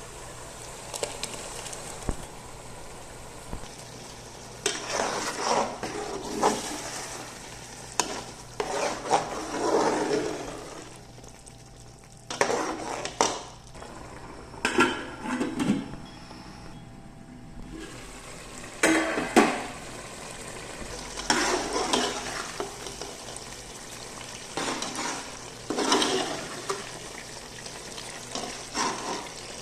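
A spoon stirring food frying in a cooking pot, scraping and clattering against the pot in repeated short bursts a second or two apart.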